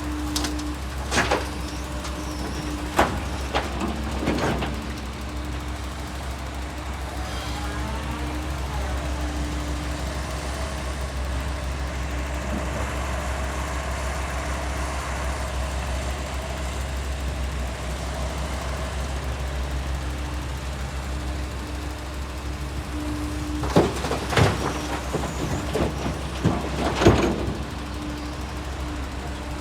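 JCB excavator's diesel engine running steadily, with a few sharp knocks about a second to four seconds in and a cluster of them near the end.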